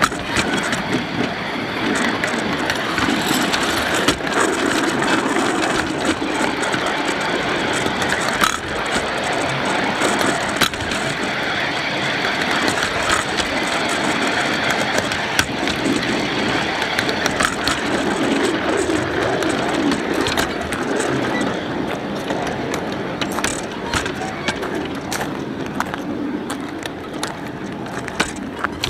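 Steel wheels of a 7.5-inch gauge riding car rolling along the track: a steady rumble and rattle with many sharp, irregular clicks over the rails.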